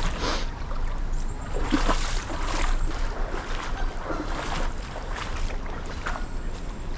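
Irregular splashes and sloshing of river water, about one every second, as someone wades through a shallow stream, over a steady rush of water and wind noise on the microphone.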